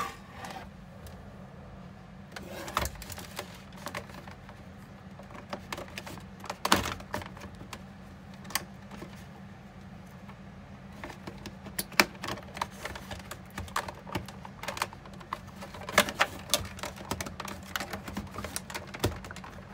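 Irregular clicks and knocks of a dehumidifier's plastic housing and parts being handled while it is taken apart, over a steady low hum.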